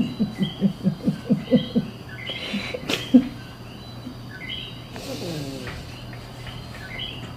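Repeated bird-like chirps from the dog's toy bird, with a quick run of short, low, rhythmic sounds in the first two seconds.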